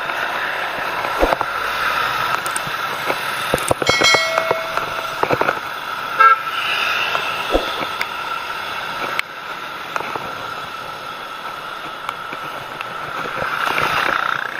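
Road traffic noise heard from a bicycle. A vehicle horn toots once, briefly, about four seconds in.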